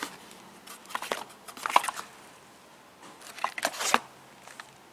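Plastic packaging crinkling and a cardboard box rustling as a bagged electronic module and its cable are handled, in three short spells.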